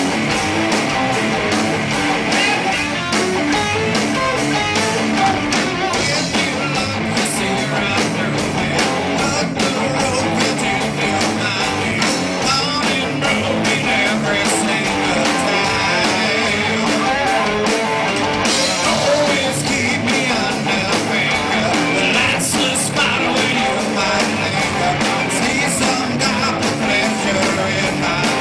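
Live rock band playing at a steady, loud level: electric guitars, bass and a drum kit keeping an even beat.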